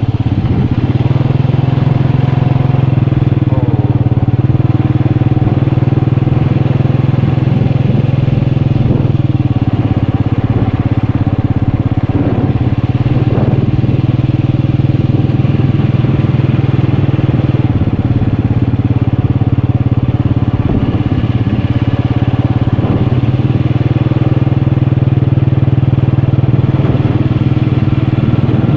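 Motorcycle engine running under way during a ride, a loud, steady drone whose pitch stays nearly constant.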